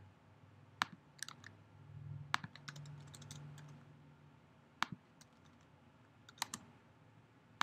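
Sparse, scattered computer keyboard keystrokes and clicks, a dozen or so spread irregularly while code is edited.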